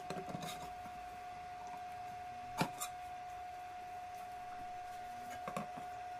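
A knife and an aluminium pan clinking and scraping as a baked flatbread on its metal tray is pried up and lifted out of the pan: a few light clicks at the start, a sharper clink about two and a half seconds in, and another pair near the end, over a steady thin tone.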